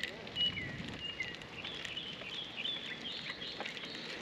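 Birds calling: a string of short, high whistled notes, some dropping in pitch, then a quicker run of chirps about halfway through, over a steady background hiss.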